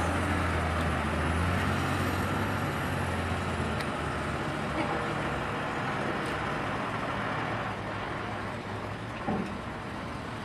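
Heavy diesel dump truck engines running. A steady low engine drone for the first few seconds gives way to a rougher rumble, with one short knock near the end.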